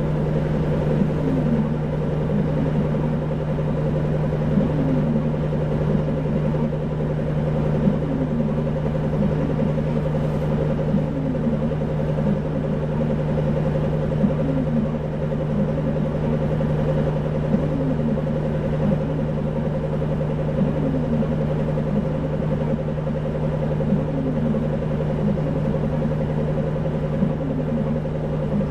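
Isuzu 2PG-LV290N3 city bus running steadily, its diesel engine holding an even hum with no rise or fall in pitch. A faint short rising chirp recurs about every two seconds.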